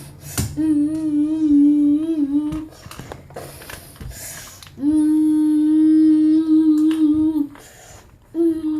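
A young child humming two long notes at about the same pitch: the first wavers for about two seconds, the second is held steady for nearly three seconds, with a few short noises in between.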